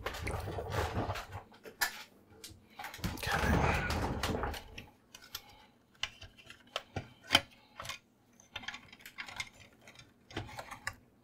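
Plastic and metal parts of an HP ThinkJet printer being handled: two stretches of rattling and scraping as the print mechanism is gripped and shifted in its case, then scattered sharp clicks and taps as parts are worked loose.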